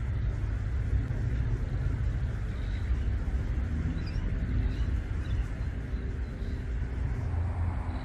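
Steady low outdoor rumble with a few faint, short, high bird chirps about midway.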